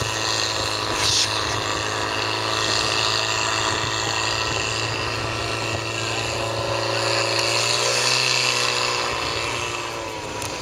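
Portable fire pump's engine running steadily at high revs, pushing water through the charged hoses to the jets; its pitch wavers slightly about three-quarters of the way through.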